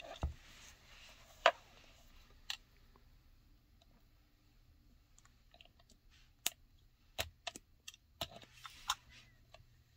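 Scattered light clicks and small scrapes of a retractable utility knife blade being worked along the seam of a leather-look card box case, with the case handled between cuts. The sharpest click comes about a second and a half in, and a run of clicks follows near the end.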